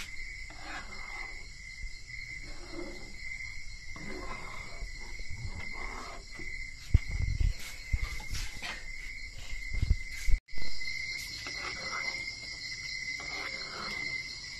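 Crickets chirping steadily, with faint scraping as a spoon stirs thick sauce in a frying pan. A few low thumps come about seven and ten seconds in.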